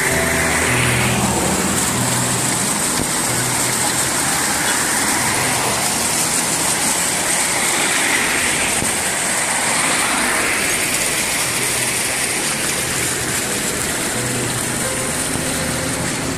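Street traffic: cars passing along a road, with a steady hiss underneath and a few swells as vehicles go by.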